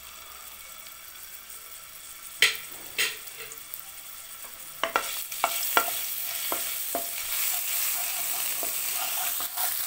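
Minced garlic frying in hot oil in a non-stick karahi: a faint sizzle that grows louder about halfway through. A wooden spoon knocks twice against the pan, then stirs with repeated short scrapes.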